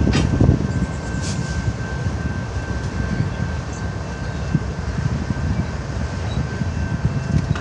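CN freight train rolling past, a steady low rumble of wheels on rails, loudest at the start. A faint, steady high whine runs through it, with a couple of brief scrapes in the first second and a half.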